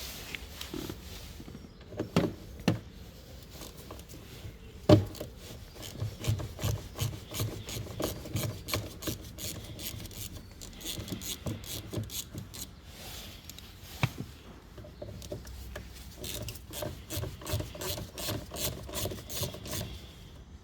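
Wing mirror retaining bolts being undone with a T20 Torx tool. A few sharp knocks, then two long runs of rapid clicking and rasping as the bolts are turned out.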